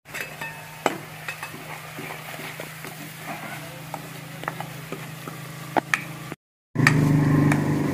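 Chopped onion, green chilli and garlic frying in a kadhai while a spatula stirs them, with a few sharp clicks of the spatula against the pan over a steady low hum. The sound cuts out briefly near the end, then comes back louder.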